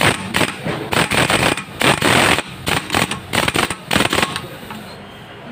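Impact wrench on a Hyundai Atoz automatic transmission's bolts, running in about a dozen short bursts with one longer run near the middle, then stopping. The bolts are not yet fully tight.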